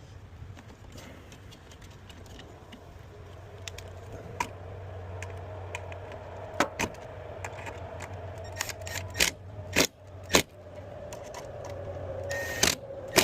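Irregular small metallic clicks and clinks from handling screws, tools and mount parts by hand, sharper and more frequent in the second half, over a faint steady hum.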